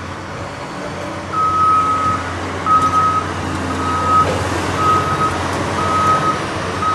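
A Caterpillar 6015B hydraulic mining excavator's diesel engine runs steadily while its motion warning alarm beeps about once a second, six single-pitched beeps starting a second or so in.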